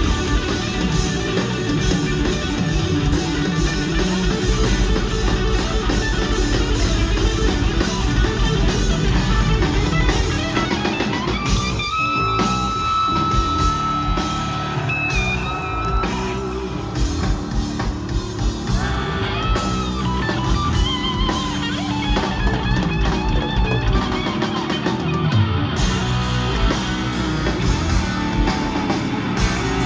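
Live rock band of electric guitar, electric bass and drum kit playing through stage amplification, with the electric guitar playing lead lines. A long held high guitar note begins about twelve seconds in and is sustained for about four seconds.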